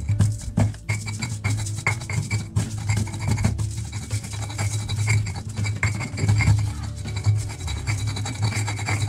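Stone pestle grinding garlic and spices against a stone cobek mortar: repeated gritty scraping and rubbing strokes of stone on stone, with background music.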